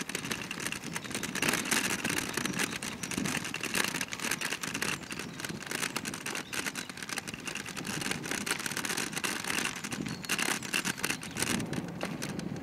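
Kick scooter rolling along a dirt path: steady wheel noise with a dense, gritty crackle and rattle.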